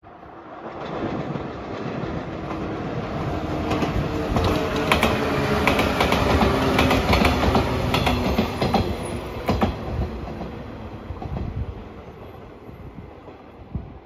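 JR 115 series electric train passing close by: its rumble builds up, peaks with a quick run of wheel clicks over the rail joints, then fades as the train moves away.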